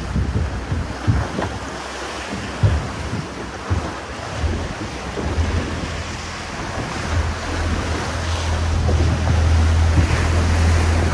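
A small boat's engine drone under rushing sea water and wind buffeting the microphone, with short splashing knocks in the first half. The engine's low hum comes up about halfway through and grows louder toward the end.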